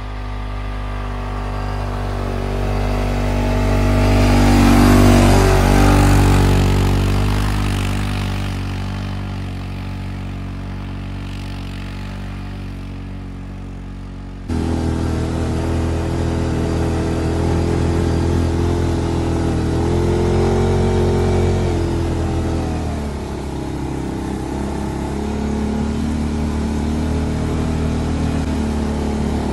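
ATV engine running steadily while the quad pushes a front snowplow through snow. It comes closer, is loudest about five seconds in, then fades. About halfway through, a sudden cut brings the engine close and steady, its pitch rising and then dropping a little near the end.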